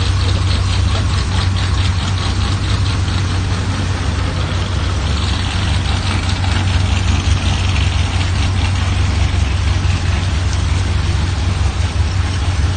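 Vehicle engine running steadily with a constant low hum. A rushing hiss swells for a few seconds midway.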